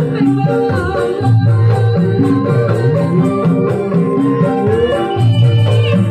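Live campursari music, the Javanese blend of gamelan-style melody with band instruments, playing loudly with a moving bass line and a wavering melody on top.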